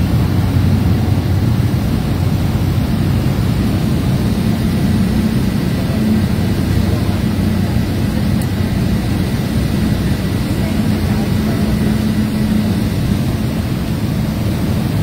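Steady low drone of a small high-wing plane's engine and propeller, heard inside its passenger cabin as it descends on approach to land.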